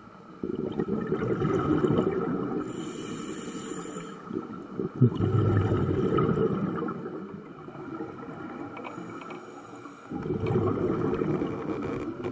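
Scuba diver breathing through a regulator underwater: three long bursts of exhaled bubbles with quieter gaps between, and a short high hiss of inhalation twice.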